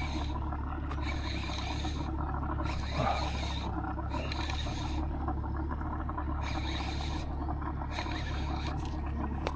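Boat motor running with a steady low hum, with short bursts of a higher rattling hiss coming and going every second or so.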